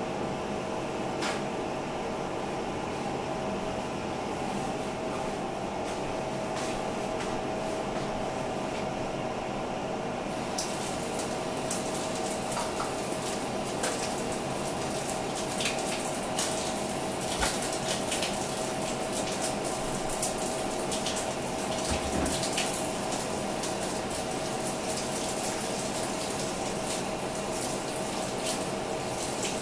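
Kitchen tap running into a sink, with a steady hum underneath. About ten seconds in the water sound grows brighter and scattered clicks and knocks join it.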